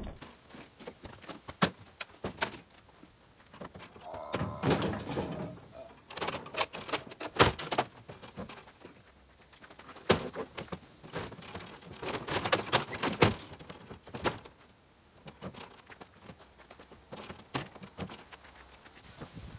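Scrap and junk being tossed and set into a pickup truck's bed: a string of separate thuds and clunks with bursts of clattering plastic and metal, some of them loud.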